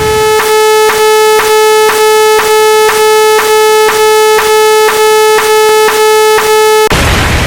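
Synthesized electronic tone, a steady buzzy note with even dips about twice a second, that gives way to a burst of hiss-like noise near the end.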